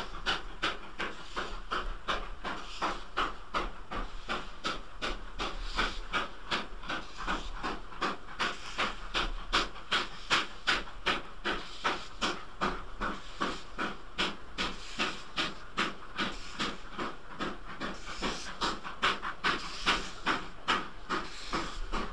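Steam locomotive exhaust beats from a Great Western goods train working hard up Dainton bank: Hall class 4-6-0 No. 7905 Fowey Hall at the head, 5100 class 2-6-2T No. 4178 banking at the rear, their exhausts mingling. A steady, regular chuffing with a hiss of steam.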